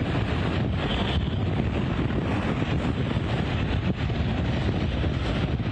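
Category 4 hurricane wind gusting around 110 mph, blasting across the microphone as a loud, steady, dense rumble.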